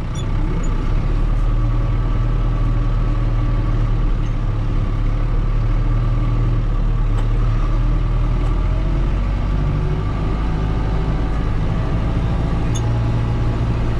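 Kubota M6040 tractor's four-cylinder diesel engine running steadily while plowing snow, its note shifting slightly about two-thirds of the way through.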